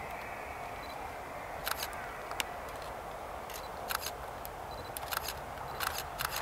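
Camera shutters clicking irregularly, singly and in quick pairs and short bursts, over a steady open-air background.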